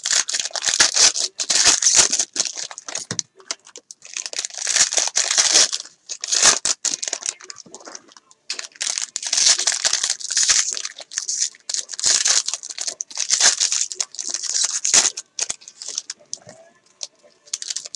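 Foil trading-card pack wrappers being torn open and crinkled by hand, in repeated bursts of crackling with short pauses between.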